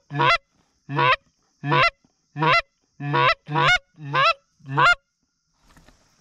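Canada goose honks: eight loud, single honks about one and a half a second, each breaking upward in pitch at its end. They stop about five seconds in.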